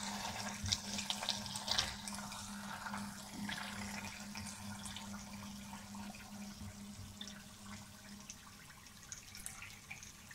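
Hot ghee trickling and dripping from a slotted ladle through a steel strainer into a steel pot, with scattered light clicks of the ladle against the pan and strainer.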